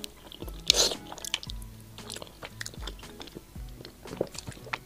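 Close-miked biting and chewing of soft, sticky braised pig's trotter: one sharp bite about three quarters of a second in, then small wet clicks and smacks of chewing, over soft background music.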